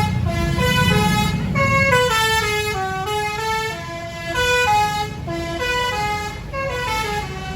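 A bus's telolet horn, a Basuri multi-tone air horn, playing a quick melody of short stepped notes, including a falling run partway through. A low engine rumble runs beneath, heaviest in the first two seconds.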